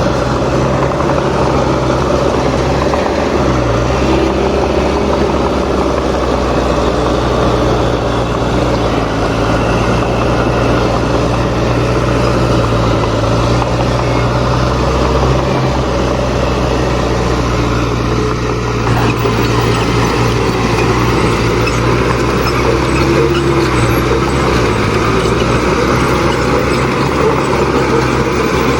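Diesel engines of heavy earthmoving machines (bulldozers and a road roller) running steadily and loudly, with a constant low drone.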